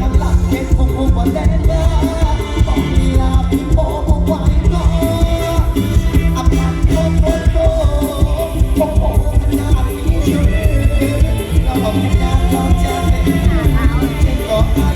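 Loud live Isan mor lam stage-show music: a fast, steady heavy bass beat under a melody line, with singing.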